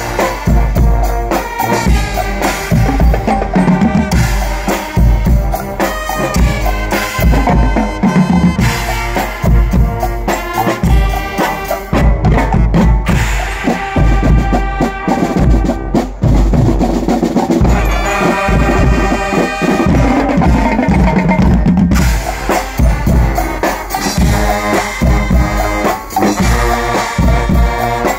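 Guggenmusik brass band playing live: trumpets and sousaphones over a steady pounding beat of bass drums, snare drums and cymbals, with a long held brass chord about two-thirds of the way through.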